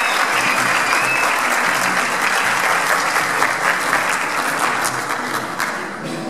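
Audience applauding in a theatre, the clapping thinning out near the end.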